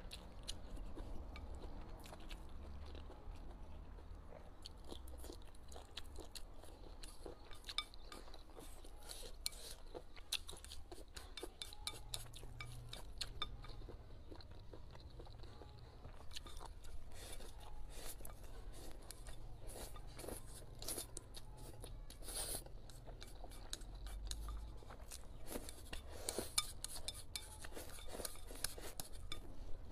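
Close-miked chewing and crunching of a mouthful of rice and stir-fried food, with many small clicks of wooden chopsticks against a ceramic bowl.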